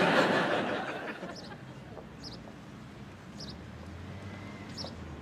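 Studio audience laughing, fading away over the first second or so. Then quiet outdoor street ambience, with a bird chirping briefly a few times.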